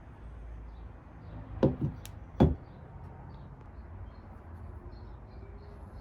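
Three short, dull knocks, two close together about a second and a half in and a louder single one about a second later, over a steady low rumble.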